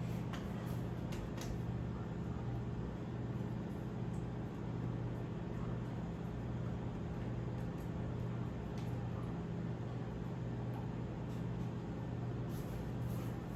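A steady low mechanical hum, like an appliance or motor running, with a few faint clicks near the start and end.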